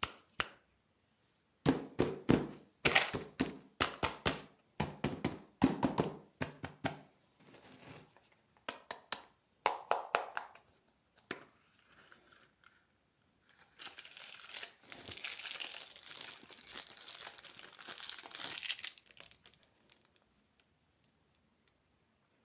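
Plastic candy wrappers crinkling and tearing open: several bursts of sharp crackling through the first half, then about five seconds of continuous crinkling in the second half.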